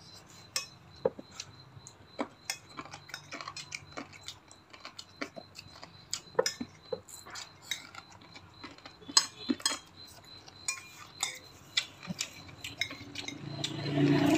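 Metal spoons and forks clinking and scraping against ceramic plates at a meal: irregular light clicks and clinks, a few of them sharper.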